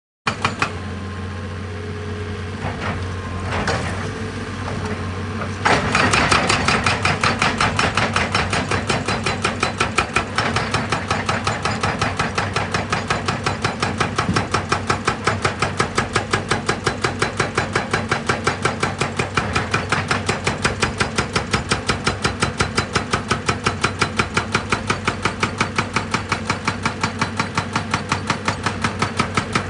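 A heavy diesel machine's engine running steadily. About six seconds in, a fast, even percussive hammering of a rock-working tool starts, about four blows a second, and keeps going.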